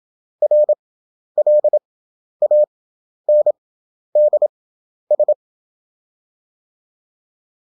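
Morse code CW practice tone: a single fixed-pitch beep keyed into dots and dashes at 27 words per minute character speed, with wide Farnsworth gaps between characters for an effective speed of 11 words per minute. Six characters sound about a second apart, then a pause of nearly three seconds near the end.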